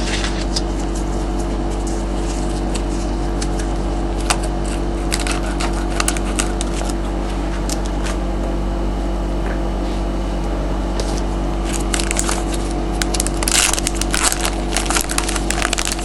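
Trading card pack being torn open and the cards handled: scattered crackles and clicks of foil wrapper and card stock, busiest near the end, over a steady low hum.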